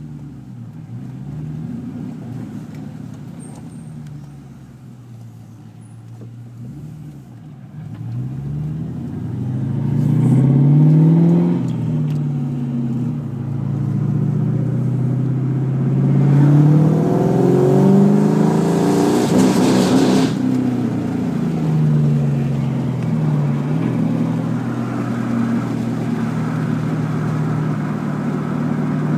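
2001 Ford Mustang GT's 4.6-litre V8 driven under acceleration, its revs rising and falling several times, with a brief rushing noise about two-thirds of the way through. The drive demonstrates the car's fault: the engine breaks up and hesitates around 4000 rpm when the fuel tank is under half full.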